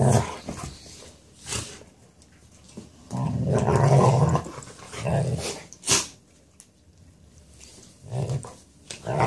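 Two Native American Indian Dogs play-wrestling, growling deeply in several bouts, the longest lasting over a second about three seconds in, with a brief sharp sound near six seconds. The growls are play growls in a wrestling match, not a real fight.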